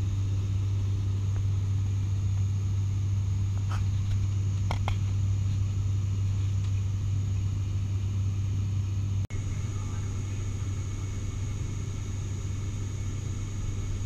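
Cabin drone of an ATR 72-600 turboprop in cruise, heard inside the cabin by a window seat: a steady deep propeller hum over engine and airflow noise. The sound briefly drops out about nine seconds in, then resumes unchanged.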